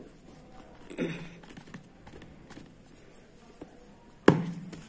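Cardboard phone box being handled: a click at the start, a few faint taps, and a sharp knock just after four seconds in. There is a brief voice sound about a second in.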